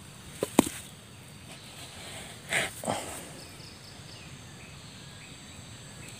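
Steady high-pitched insect chirring in the background, broken by two sharp clicks about half a second in and two short louder noises near the three-second mark.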